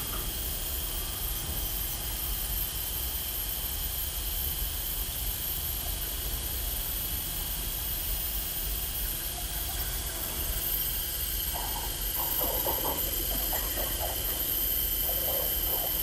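Automatic laminating machine running: a steady mechanical hum and hiss with a thin high whine, and a few faint short sounds over the last few seconds.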